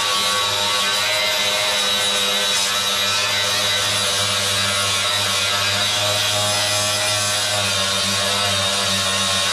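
Cordless angle grinder with an abrasive disc running steadily against a car's sheet-steel floor pan, grinding off paint and rust to get bare metal ready for welding.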